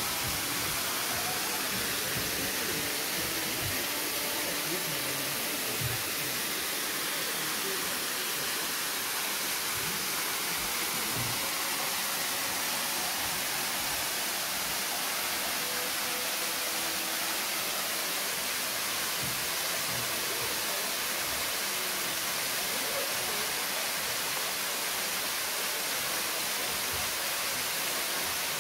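Waterfall pouring down a rock cliff into a plunge pool: a steady, even rush of falling water.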